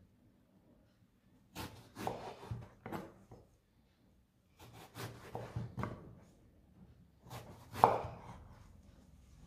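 Chef's knife cutting a raw eggplant into chunks on a wooden cutting board: three bouts of slicing strokes, the blade knocking on the board, the loudest stroke near the end.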